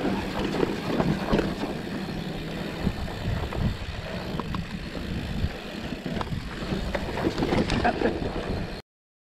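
Mountain bike descending a dusty dirt trail: wind rushing over the microphone and tyres running on dirt, with the bike rattling and giving scattered clicks and knocks over bumps. The sound cuts off suddenly near the end.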